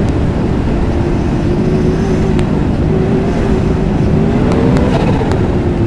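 The 2022 Ski-Doo Mach Z's 900 ACE Turbo R three-cylinder turbocharged four-stroke engine is running steadily under way. It has a Hurricane Performance ECU tune and an aftermarket downpipe. Near the end the engine pitch rises briefly and then settles back.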